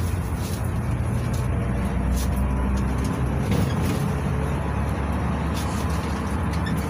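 Cabin noise of a GAZelle Next A64R45 minibus on the move, its Evotech 2755A engine and tyres giving a steady low rumble.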